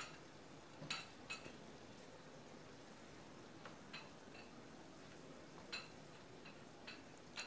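Wooden spoon knocking and scraping against a non-stick frying pan as pieces of offal and dry spices are stirred, in a handful of light scattered taps over a faint steady frying sizzle.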